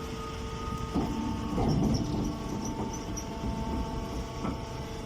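Machinery running with a steady hum and low rumble, with a few short knocks.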